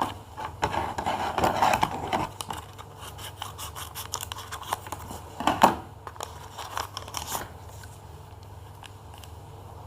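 Paper packaging of a homemade blind bag being handled and opened: a run of paper rustles and clicks, loudest about five and a half seconds in, growing quieter after about seven and a half seconds.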